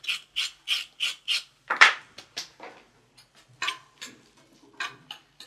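Kitchen work at a counter: quick scraping or rubbing strokes, about three a second, then one louder stroke about two seconds in, followed by scattered lighter scrapes and clicks.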